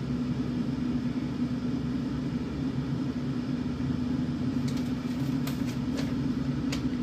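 Steady low hum of a running fan or appliance motor. Over it come a few short crinkles and clicks in the last couple of seconds as a parcel and its paperwork are handled.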